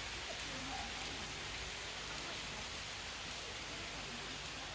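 Dew dropping from the trees, a steady light patter that sounds like rain.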